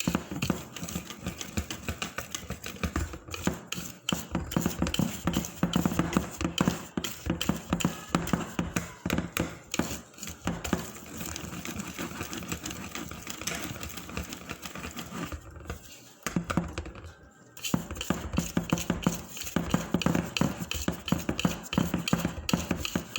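Hotcake batter being beaten by hand in a mixing bowl: a rapid, rhythmic clatter of the utensil against the bowl, pausing briefly about two-thirds of the way through before starting again.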